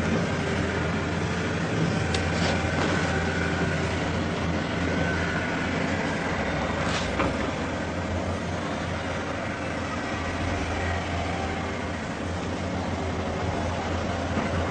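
Steady low droning hum under a noisy rumbling background, with faint wavering higher tones and a few brief clicks: the kind of mystery drone recording circulated as the 'strange sounds' or 'sky trumpets' phenomenon.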